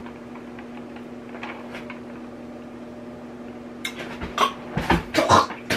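A man sputtering in a quick run of short bursts from about four seconds in, reacting to a sip of a drink spiked with Listerine mouthwash. Before that only a steady low hum is heard.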